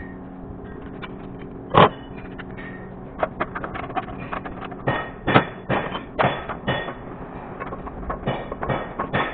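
Metal tools clanking and knocking on car parts during engine-bay work, with one loud knock about two seconds in and a run of quicker clanks and clicks in the second half, over a steady low hum.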